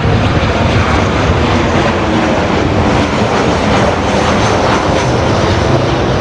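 Airplane engine noise, loud and steady.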